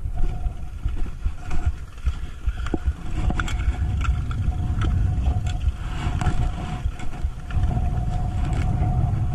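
Wind buffeting the microphone of a body-worn camera: a dense, uneven low rumble, with a few sharp clicks and knocks of handling.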